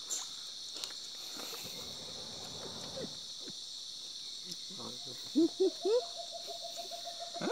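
Steady high-pitched night chorus of crickets and other insects. About five seconds in, it is cut across by a run of short, loud, rising calls and a held tone.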